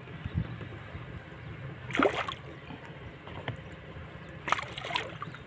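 A large hooked fish splashing at the surface beside a wooden boat: two sharp splashes about two and a half seconds apart, over low water lapping.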